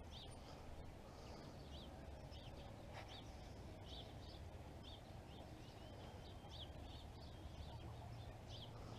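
Faint bird chirps, short and high, repeating about twice a second over a quiet, steady outdoor background.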